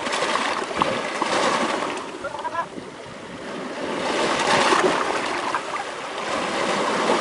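Small waves washing in over rocks at the shoreline, a rushing, splashing sound that swells twice.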